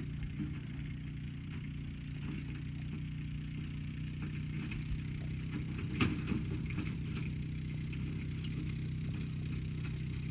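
Vehicle engine idling steadily, with a brief clatter of knocks about six seconds in.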